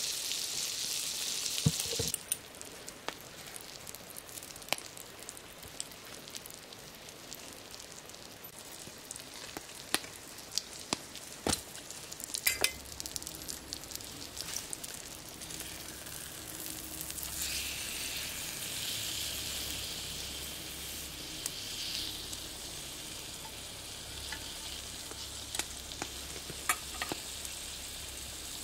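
Steak sizzling in hot fat in a pan, loud at first and dropping away sharply about two seconds in. Scattered sharp clicks and knocks follow, and a softer sizzle rises again for a few seconds past the middle.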